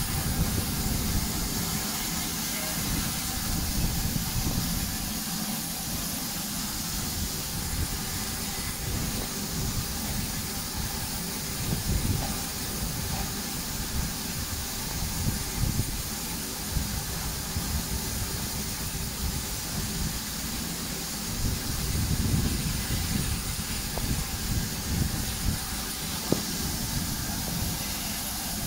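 Steady hiss of steam from standing saddle-tank steam locomotives, with an uneven low rumble underneath.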